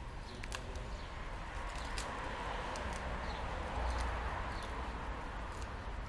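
Steady outdoor street noise that swells for a few seconds in the middle, with a few faint scattered clicks.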